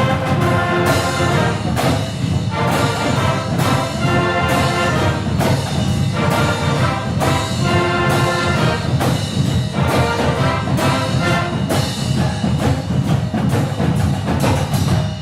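University pep band playing: brass section over drums keeping a steady beat.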